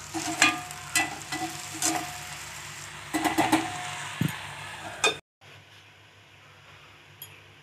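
Chopped banana flower sizzling in a hot iron kadai while a perforated metal spatula stirs and scrapes it against the pan, with sharp scrapes about once a second. About five seconds in the sound cuts off, and only a faint steady hiss is left from the pan under a steel lid.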